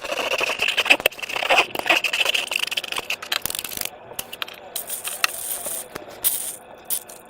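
Slime being squished and pulled by hand: a dense run of small clicks and crackles that starts suddenly, busiest in the first three seconds, then thins out.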